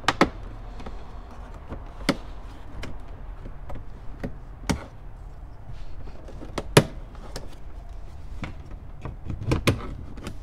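Plastic clip-held dash panel over a tweeter being pried loose with a plastic trim tool: irregular sharp clicks and snaps of the clips and tool against the dash, about a dozen, the loudest about seven seconds in.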